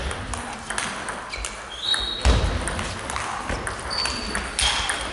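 Table tennis rally: the ball clicks in quick succession off the bats and the table. Short high squeaks, likely shoes on the hall floor, and a couple of heavier thumps of feet come about two seconds in.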